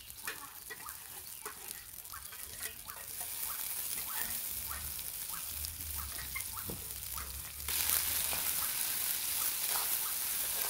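Whole boiled eggs frying in oil in a small iron kadai over a wood fire: a sizzling hiss with many short crackles and pops, getting louder about eight seconds in.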